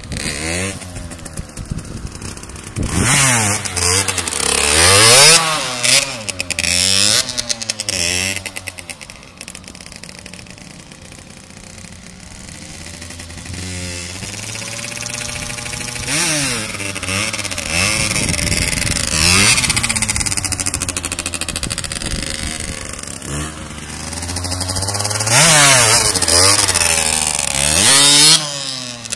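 Sport motorcycle engine being revved hard and let off again and again, its pitch repeatedly climbing and dropping as the bike is ridden through tricks. The engine is quieter in the middle, then swells loud again near the end.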